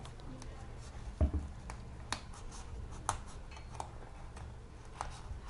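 Utility knife blade scraping and catching against a sneaker's knit upper and sole, with scattered small clicks and a dull thump about a second in.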